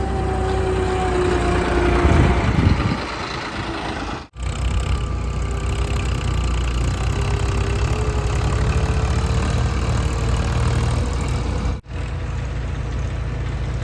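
Diesel engines of a JCB 3DX backhoe loader and farm tractors running steadily, with a whine that slides down in pitch in the first seconds and later slowly rises. The sound cuts out abruptly twice, for a split second each time.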